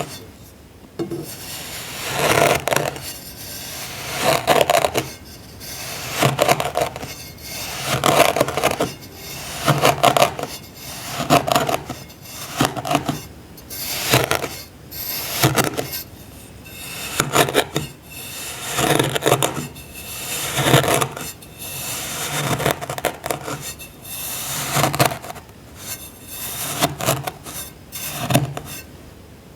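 A tool cutting through packed sand again and again, each stroke a gritty, crunching scrape, about one every second and a half.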